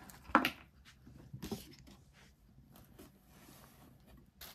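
Handling noises as packaging and a drive are moved by hand: a sharp knock about half a second in, a softer one about a second later, light rustling, and a short click near the end.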